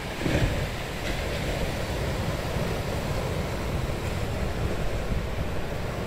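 Surf from typhoon swell breaking and washing up a beach, a steady wash of water noise. Wind buffets the microphone with a low rumble, loudest just after the start.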